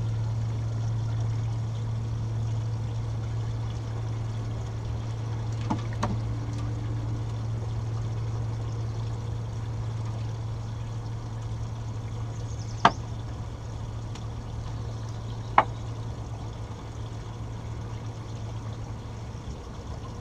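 Running, pouring water with a steady low hum underneath. A faint sharp click comes about a quarter of the way in, and two louder sharp clicks come a few seconds apart later on.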